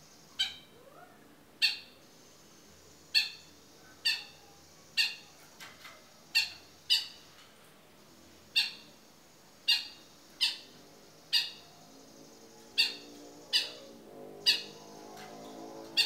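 Long-tailed shrike (cendet) calling: about fourteen short, sharp notes at irregular intervals, roughly one a second. Near the end a softer, lower sound rises beneath them.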